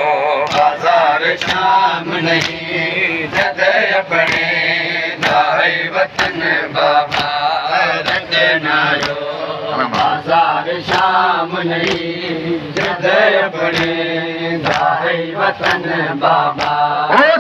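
A crowd of men chanting a noha in chorus, while they beat their chests with open palms (matam) in a steady beat of about two slaps a second.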